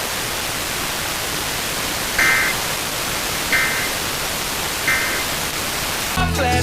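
Steady static hiss carrying three short bursts of EAS digital data tones, evenly spaced about 1.3 s apart: the end-of-message code that closes the alert. Near the end a brief burst of other audio cuts in.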